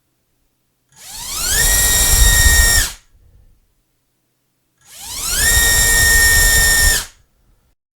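ZMX Fusion X25 2206 2300 kV brushless motor spinning a DAL Q5040 four-blade propeller in a thrust test, run up twice. Each time a rising whine climbs quickly to full throttle, holds for about two seconds, then cuts off.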